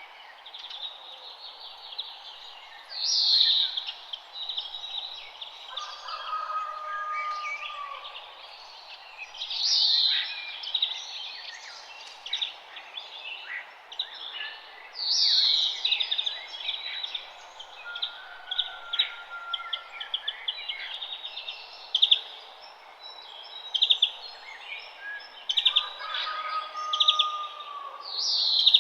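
Morning chorus of several songbirds chirping and trilling together over a steady background hiss. One loud call, a quick falling note, comes back about every six seconds. A lower, held whistle sounds twice, a few seconds in and again near the end.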